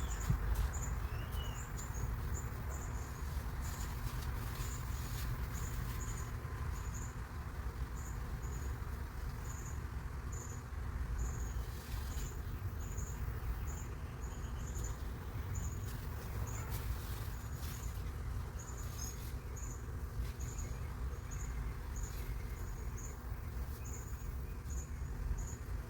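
Outdoor garden ambience: a steady low rumble on the microphone, with a short high chirp repeating evenly about once or twice a second and a few faint clicks.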